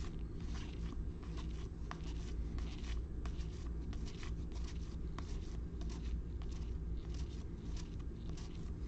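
Trading cards and packs handled by hand: a string of soft irregular rustles and light clicks as cards are flipped through, over a steady low hum.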